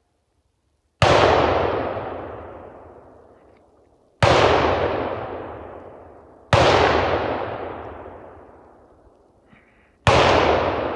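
Four hunting rifle shots, a few seconds apart, each followed by a long echo that dies away through the woods.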